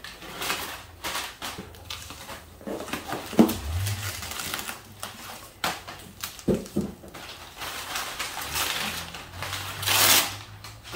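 Crumpled packing paper and plastic bubble wrap rustling and crinkling as a package is lifted out of a cardboard box, with a sharp knock about three and a half seconds in.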